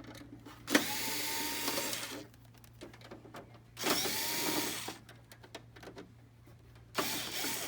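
Cordless power screwdriver running in three short bursts, about a second each, backing out three screws; the motor whine rises as each run starts, then holds steady.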